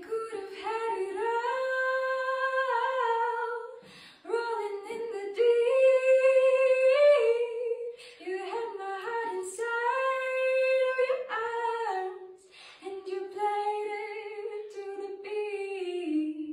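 A woman's voice singing long wordless notes a cappella, in four phrases separated by short breaks about 4, 8 and 12.5 seconds in.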